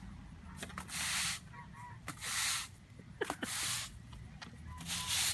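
Four hissing bursts, a little over a second apart, with faint short squeaky calls between them.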